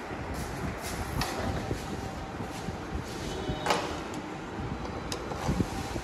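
A hand socket tool clinks against metal a few times while the bolts of a Honda Dream engine's cylinder-head top cover are tightened. The loudest clink comes near four seconds in, over a steady background hiss.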